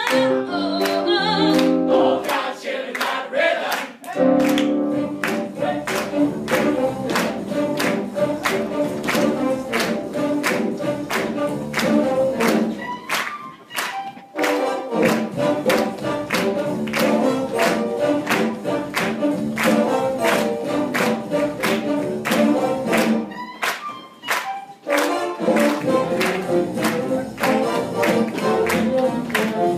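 Upbeat music with group singing over a steady, driving beat, broken by short pauses about every ten seconds.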